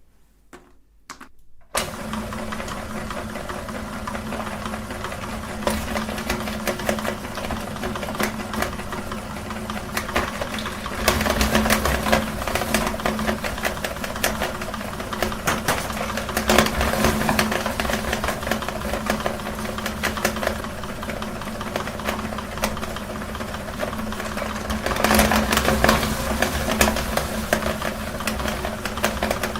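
Electric meat grinder switched on about two seconds in, its motor running with a steady hum while it crunches through cookies, a dense crackle that grows louder at a few moments.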